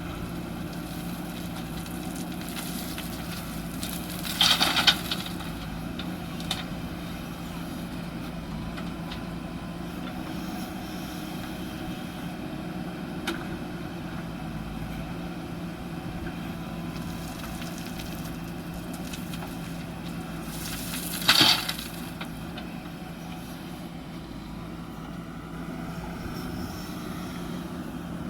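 JCB backhoe loader's diesel engine running steadily, with two brief loud noises, about four seconds in and again about twenty-one seconds in.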